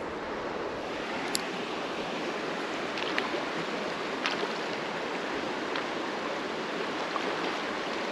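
Creek water running steadily, with a few faint clicks scattered through it, about a second or more apart.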